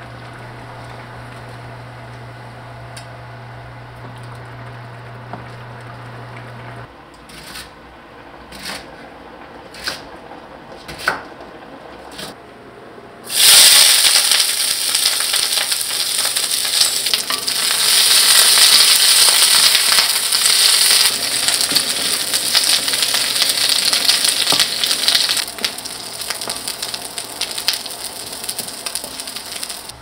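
Food going into a hot pan and frying with a loud sizzle that starts suddenly about midway and eases off near the end. Before it there is a steady low hum and five light taps about a second apart.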